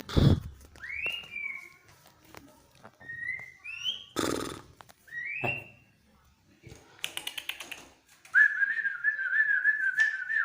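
White-rumped shama (murai batu) singing: separate clear whistled notes that sweep upward, mixed with short harsh notes and a quick clicking chatter. Near the end comes a loud, warbling trill.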